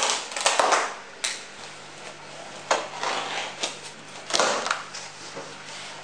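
Plastic packing straps being cut and pulled off a cardboard refrigerator carton: a string of short scraping and rustling handling noises against the cardboard, with two sharp snaps, about half a second in and again past the four-second mark.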